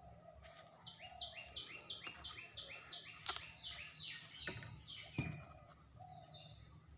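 A bird singing a quick run of short, repeated chirps that alternate between two pitches, about six notes a second, stopping about four and a half seconds in. A few sharp clicks, with one louder knock about five seconds in.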